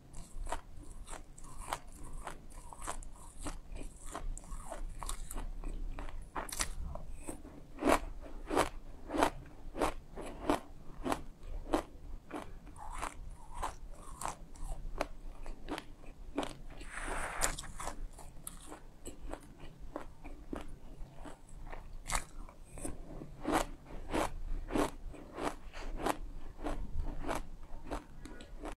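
A mouthful of dry sesame seeds being chewed, giving a steady run of crisp crunches at about two a second. A short hiss comes about halfway through.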